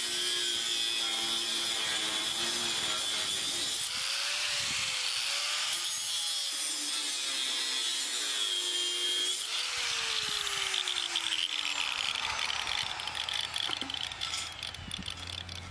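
Angle grinder with an abrasive cutoff wheel cutting through a steel beam: a steady, high-pitched grinding whine whose pitch dips and recovers as the wheel is pressed into the cut, then falls away near the end as the cut finishes.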